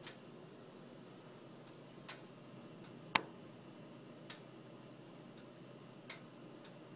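Faint, sharp, irregular ticks, about eight of them with one louder click a little past three seconds in, over a low hiss: the switched-off electric coil burner and the glass vacuum pot ticking as they cool while the coffee drains back down the siphon tube.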